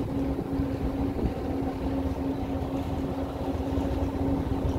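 Tour boat's engine running at cruising speed, a steady hum over the wash of its wake, with wind on the microphone.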